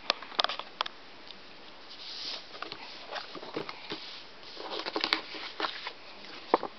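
A folded paper sticker mount being handled and unfolded, with paper rustling and crinkling. Sharp clicks and crackles come near the start and again near the end.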